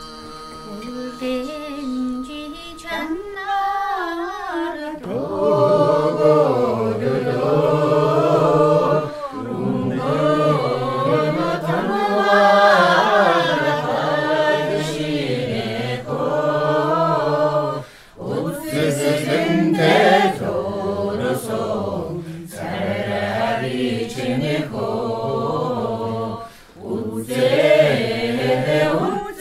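A group of people singing a song together without accompaniment, starting a few seconds in, with two short breaks between lines, about two-thirds of the way through and near the end.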